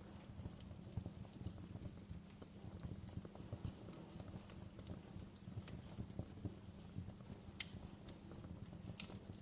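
Wood fire burning in a fireplace, crackling steadily with a dense low crackle and scattered sharp pops, two louder pops near the end.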